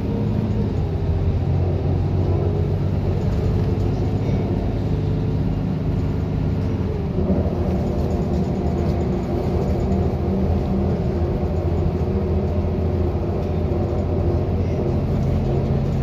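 Inside a 2011 Gillig Advantage transit bus at speed: its engine runs steadily under road noise, and the engine note changes about seven seconds in.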